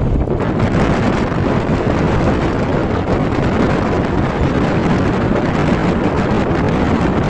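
Wind buffeting the microphone: a loud, steady rushing rumble with no pauses.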